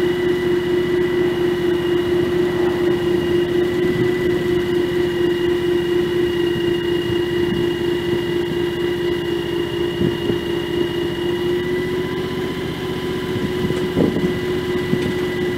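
John Deere X738 garden tractor engine idling steadily, with a few short knocks near the end.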